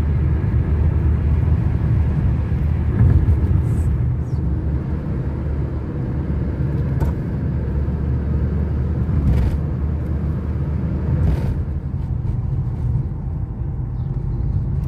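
Car cabin noise while driving: a steady low rumble of engine and tyres on the road, with a few faint ticks.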